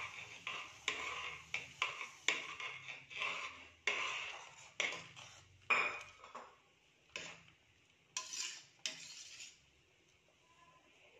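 Perforated steel ladle stirring wheat rava into boiling water in a stainless-steel pressure cooker, knocking and scraping against the pot about once or twice a second. The stirring stops near the end.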